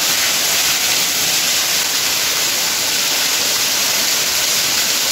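Powerful jet of water from a Hyundai 2-inch submersible mud pump's outlet, spraying against the walls and splashing back down into the tank in a loud, steady rush.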